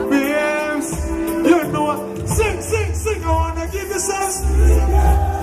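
Reggae song playing: a wordless sung vocal runs and glides over a bass line.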